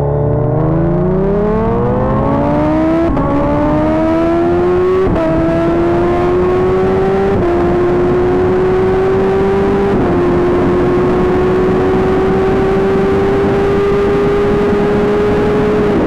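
Inline-four superbike engine at full throttle in a rolling-start drag run, its pitch climbing through the gears and dropping at each of four upshifts, about 3, 5, 7 and 10 seconds in. After the last shift the revs hold high and rise only slowly.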